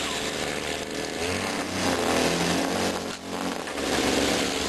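A motor engine running, its pitch shifting up and down, with a brief dip a little after three seconds in.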